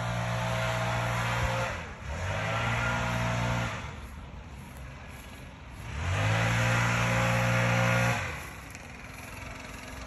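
A small petrol engine revved high and let drop back toward idle, three runs of about two seconds each with lower, quieter stretches between.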